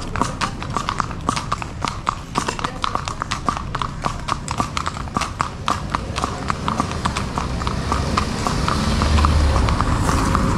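A rapid, uneven clatter of sharp clicks and knocks, several a second. A rushing noise swells in over the last couple of seconds.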